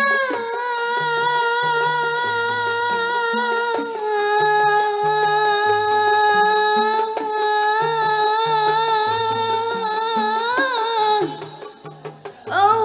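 Qosidah music: a woman's amplified voice holds one long, slightly wavering note for about ten seconds, ends it with an ornamental turn, and starts singing again near the end, over a bass line stepping between low notes.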